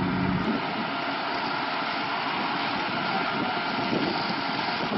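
Fire hose spraying water onto a burning car, a steady hiss of spray and steam. A low hum cuts off about half a second in.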